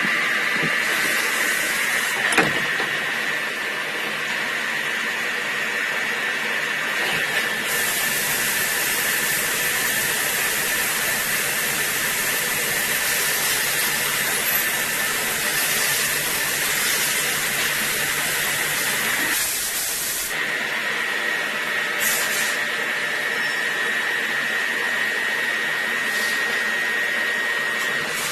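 DMG MORI vertical machining centre running a cutting cycle on a small part, with a steady high whine from the spindle and cut. A strong hiss of spray comes in about eight seconds in and stops about twenty seconds in, and a single sharp click sounds about two seconds in.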